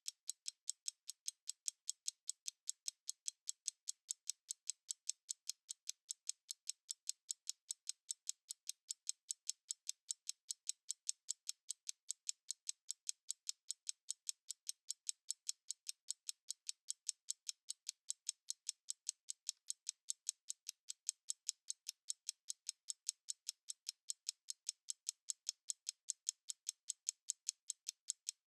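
Stopwatch ticking steadily, about four sharp, high-pitched ticks a second.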